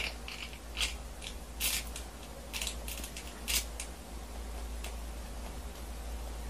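Sucking a partly melted Slurpee up a straw in one long go: a string of short, irregular slurps, one a little longer than the rest.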